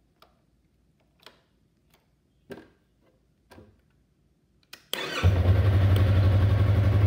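A few faint clicks, then about five seconds in a motorcycle engine is cranked by its electric starter, catches almost at once and settles into a steady idle.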